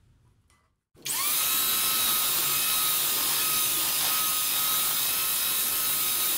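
Electric hand mixer switched on about a second in, its motor spinning up quickly and then whirring steadily with a high whine as the beaters whip eggs and powdered sugar into a foamy mixture.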